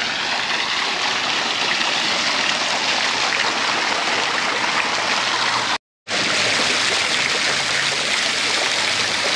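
Steady rush of flowing water from a stream, an even continuous noise with no let-up, broken once by a split-second dropout about six seconds in.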